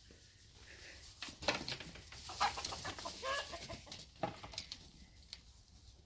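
Chickens clucking, a few short calls near the middle, with scattered light knocks.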